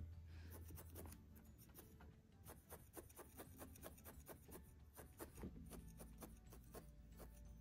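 Faint, quick pokes of a felting needle stabbing repeatedly through wool into a felting mat, each jab a small soft tick.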